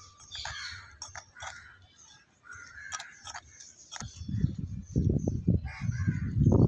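Crows cawing repeatedly in short calls. About four seconds in, a loud low rumble sets in and becomes the loudest sound.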